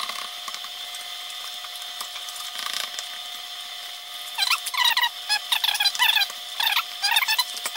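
A 3D-printed ABS box squeaking against its build sheet as it is twisted free: from about four seconds in, a run of short, loud squeaks, two or three a second, over a steady background hum.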